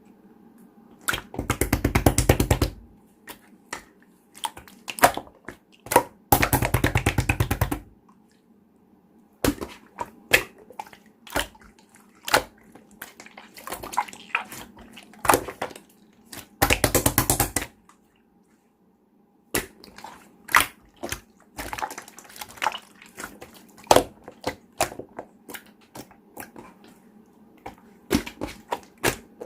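Clear slime being squeezed and pressed by hand, giving sharp sticky pops and clicks. There are three longer runs of rapid crackling pops, each lasting a second or so.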